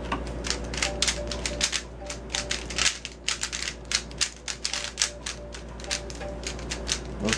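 DaYan PanShi 3x3 speedcube being turned rapidly during a speedsolve: a fast, irregular clatter of plastic layers clicking and scraping, several turns a second.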